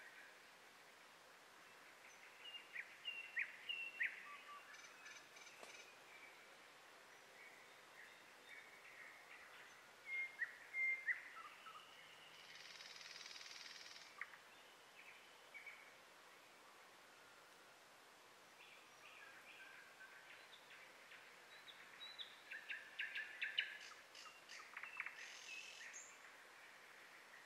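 Small birds chirping faintly in scattered clusters of short, high calls, busiest a few seconds in, around ten seconds in and again near the end.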